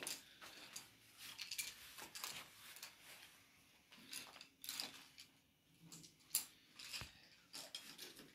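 Coloured pencils clicking and rattling together as they are gathered up by hand and put into a pencil case: faint, scattered light clicks.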